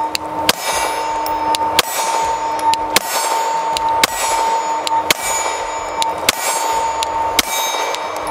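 Semi-automatic pistol fired at a slow, steady pace: about eight sharp shots, roughly one a second, each with a short ringing tail. A steady high ringing tone runs under the shots.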